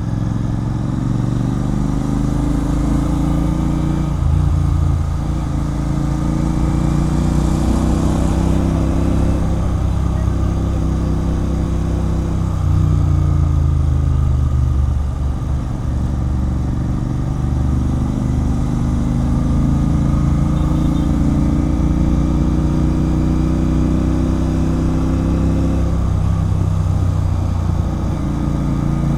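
Royal Enfield Continental GT 650's parallel-twin engine breathing through an aftermarket Red Rooster Performance exhaust, running loud and continuous on the move, with the engine speed rising and falling a few times.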